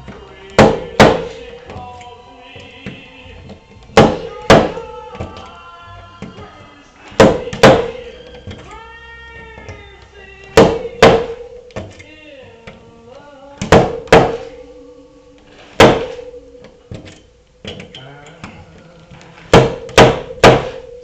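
Sharp metallic knocks, mostly in pairs about every three seconds and three in quick succession near the end, each with a short ring: a slide hammer snapping back on a pin welded to a car body panel to pull out a dent. Background music plays throughout.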